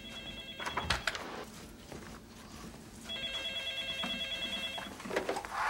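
Electronic desk telephone ringing with a rapid trill: one ring ending just under a second in, then a second, louder ring of about two seconds starting about three seconds in. A clatter comes just before the end.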